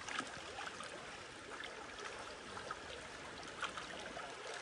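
River water running and trickling around a bamboo raft, with many small splashes and ticks.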